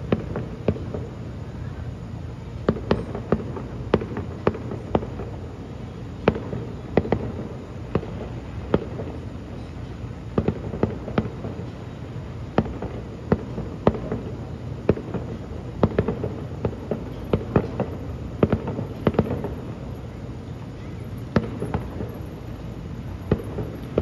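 Aerial fireworks going off in an irregular string of sharp bangs and pops, sometimes several within a second, over a steady low rumble.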